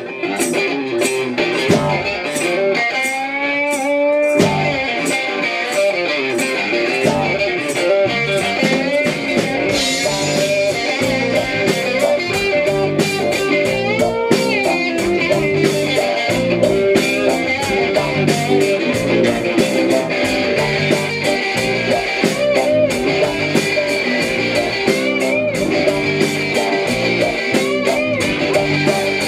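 Live blues-rock band playing an instrumental break between verses: electric guitar over a steady drum beat.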